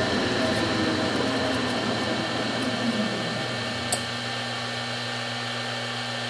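5 hp three-phase jointer motor and cutterhead spinning down under a variable frequency drive's 10-to-12-second deceleration ramp, its whine falling in pitch and fading out about three and a half seconds in. A steady hum remains, with a single click about four seconds in.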